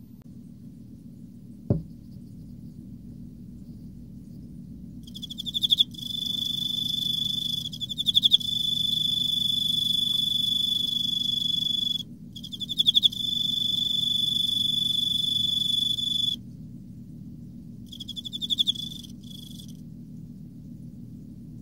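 Male Emma field cricket singing: a clear, high, ringing song that starts about five seconds in as pulsed chirps and runs into long unbroken trills, with one short break, then a last brief burst near the end. A single sharp knock sounds about two seconds in.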